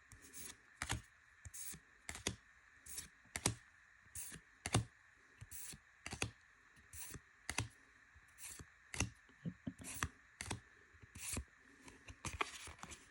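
Trading cards from a freshly opened One Piece OP04 booster pack being flicked through one at a time, each card giving a short sharp click, about one every half second to a second.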